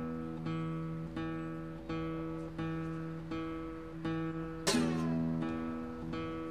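Background music: an acoustic guitar picking slow, evenly spaced notes, each ringing out and fading, with a louder strummed chord about two-thirds of the way through.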